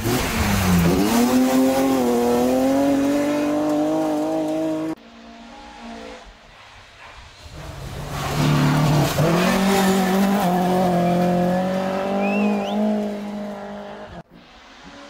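Two rally cars passing on a gravel stage, engines at full throttle. The first is loud from the start, its engine note dips about a second in and then holds high until it cuts off suddenly about five seconds in. The second builds up from about seven seconds, dips in pitch as it passes and holds high before it too is cut off near the end.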